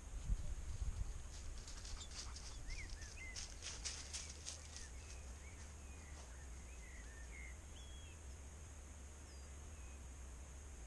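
Small birds giving short chirping calls over a faint steady hiss, with a run of rapid high clicks about two to five seconds in and a low rumble at the start.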